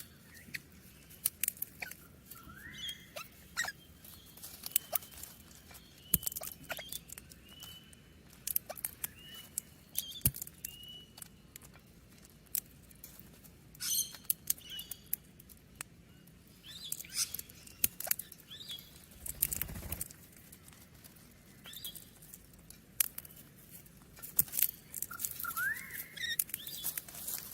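Parrots chirping and chattering: scattered sharp high clicks and chirps with short whistled notes, and a rising whistle near the start and again near the end.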